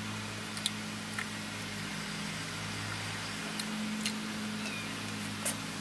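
Steady low engine hum with a faint hiss, and a few small sharp clicks over it.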